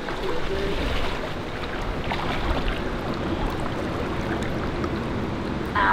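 Steady rushing of a small river's shallow water flowing over bedrock. A short, high, voice-like call comes near the end.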